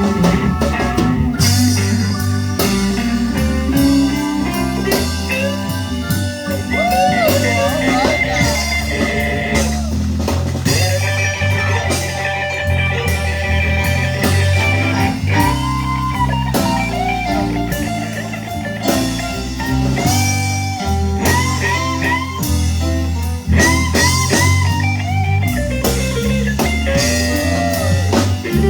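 Live blues band playing an instrumental break in a slow blues: a lead guitar solo with bent notes over drums and a low rhythm section.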